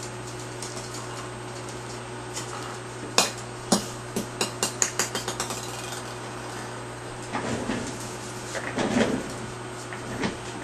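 A small hard ball dropped onto a hard surface, bouncing with quicker and fainter bounces until it settles, about three seconds in. Later come a few rough scraping knocks.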